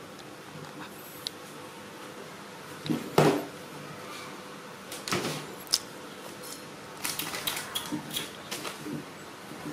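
Knocks and clatter of a plastic milk bottle and other objects on a metal tabletop as a baby monkey plays among them. There is one loud knock about three seconds in, a couple more with a sharp click around five seconds, and a quick run of clicks and knocks near the end.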